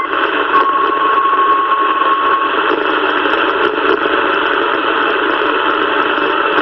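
CB radio receiver putting out steady hiss and static through its speaker between transmissions, with a steady high whistle for about two seconds near the start.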